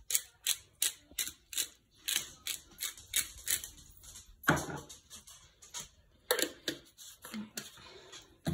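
Hand pepper grinder being twisted: a quick run of grinding clicks, about four a second, for the first four seconds, then a louder knock and a few scattered clicks.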